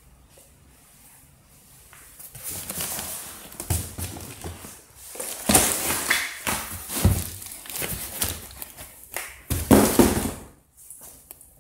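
Packaging being handled in a shipping carton: cardboard and plastic wrap rustling and scraping, with a few dull knocks, starting about two seconds in and loudest in the middle and again near the end.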